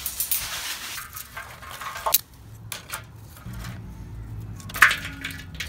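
Sticks and a metal grate being handled at a steel fire pit while kindling is set up: scattered clinks, clatters and knocks, with one sharp knock about five seconds in.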